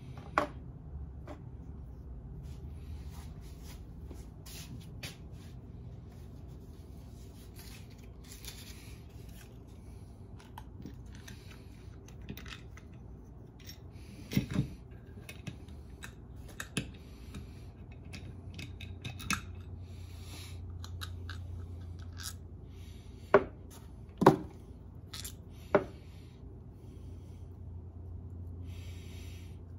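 Small metal motorcycle engine parts being handled and set against each other at a workbench: scattered light clicks and clinks, with a few sharper knocks about halfway and three more near the end, over a steady low hum.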